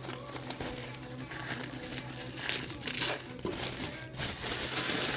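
Packaging crinkling and rustling in irregular bursts as a clay roller is unwrapped from its wrapping.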